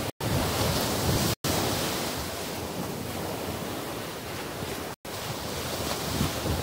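Small surf breaking and washing on a sandy beach, with wind buffeting the microphone as a steady rushing noise. The sound cuts out for an instant three times.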